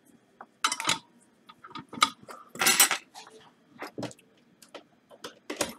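Tools and small hard objects being picked up and set down on a workbench: an irregular run of clinks, knocks and a short rattle.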